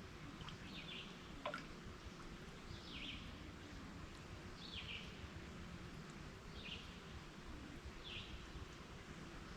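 A bird calling over and over: a short, downward-sliding call repeated about every two seconds, against a steady low rush of the creek. There is a single faint click about a second and a half in.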